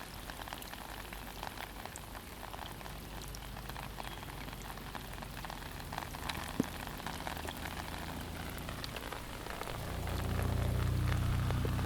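Heavy monsoon rain falling steadily, with many small drop taps and one sharper tap about halfway through. A low hum builds up and grows louder near the end.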